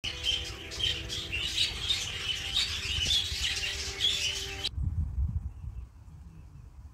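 Budgerigars chattering with many short, quick chirps. The chirping cuts off suddenly about two-thirds of the way in, leaving only a low rumble.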